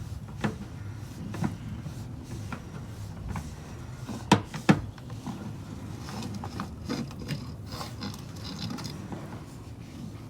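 Scattered mechanical clicks and knocks over a low rumble, with two sharp knocks about four seconds in, from handling a sewer inspection camera's push cable and reel.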